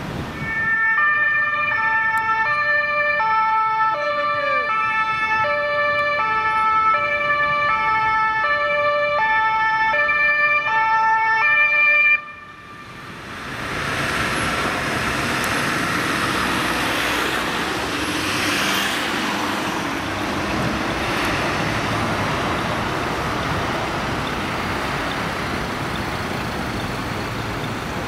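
Emergency vehicle's two-tone siren (German Martinshorn) alternating between two pitches, about one full cycle per second, for roughly twelve seconds before cutting off suddenly. After that comes a steady rush of road traffic noise as emergency vehicles drive past.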